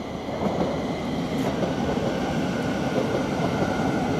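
Class 700 Thameslink electric multiple unit arriving into the station, with steady wheel and running noise and a high steady whine from about a second and a half in.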